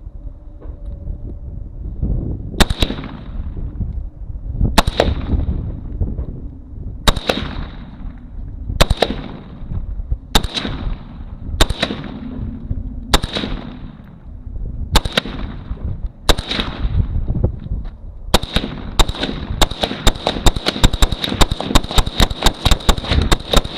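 AK-pattern rifle in 7.62x39 firing. First come nine single shots spaced about one and a half to two seconds apart, then, about three-quarters of the way in, a fast string of shots several a second that continues to the end.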